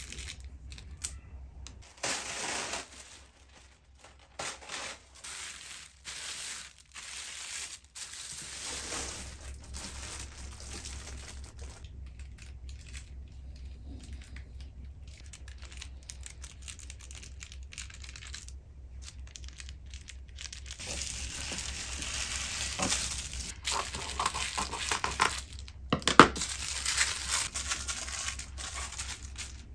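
Clear plastic freezer bags holding salmon portions crinkling and rustling as they are handled, in scattered bursts at first and more continuously in the last third, loudest about 26 seconds in. A steady low hum runs underneath.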